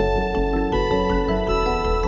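Instrumental background music of sustained, overlapping notes.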